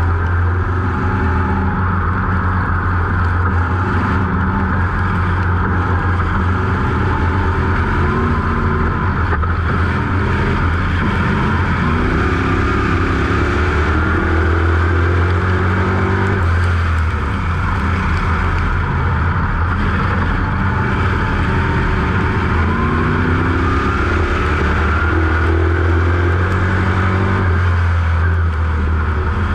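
A dirt-track sportsman modified's GM 602 crate small-block V8, heard from inside the cockpit, running loud and steady, with its pitch rising as it accelerates twice, about halfway through and again near the end.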